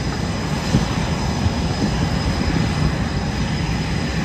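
Jet engines of Blue Angels F/A-18 Super Hornets running steadily, a thin high whine over a low rumble.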